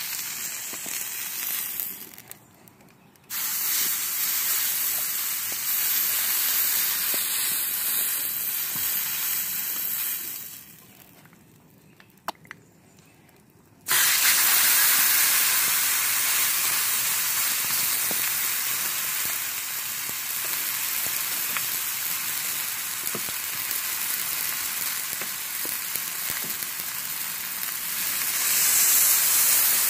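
New York strip steaks sizzling on a flat-top griddle, held on edge with tongs to sear the sides. The steady sizzle drops out abruptly twice, once about two seconds in and again for about three seconds from around ten seconds.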